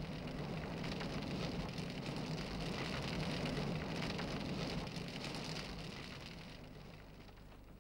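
Powder avalanche: a rushing roar with a low rumble underneath, swelling to its loudest a few seconds in and then slowly fading away.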